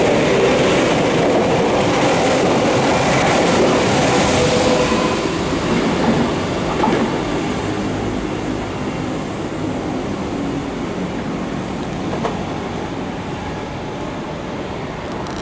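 Tokyu 8500 series electric train running: traction-motor whine over wheel and rail noise, loud at first and slowly fading from about a third of the way in.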